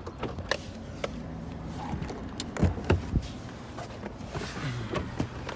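Truck creeping along a rough dirt road: a low steady engine hum with repeated knocks and clatters, the loudest cluster about two and a half to three seconds in, and the engine note dropping near the end.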